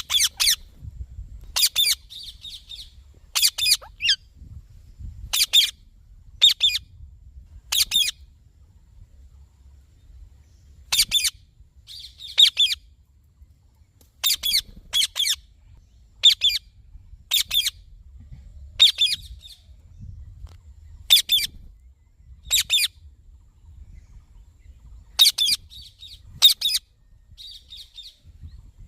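Indian ringneck parrot giving short, shrill squawks one after another, often in quick pairs, every second or two with a few longer pauses.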